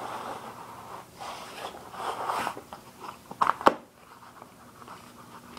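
BMX tire and inner tube being worked off the rim by hand: rubber rubbing and crackling, with two sharp snaps close together about three and a half seconds in.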